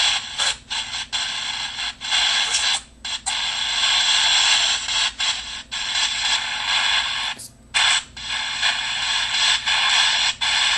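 White-noise hiss played from an app, broken by frequent brief dropouts, the longest about three and seven and a half seconds in, over a steady low hum.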